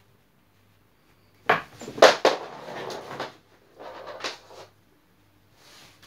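Handling noise off the picture: a few sharp knocks and clacks with scraping and rubbing between them, loudest about two seconds in, then a softer rustle near the end.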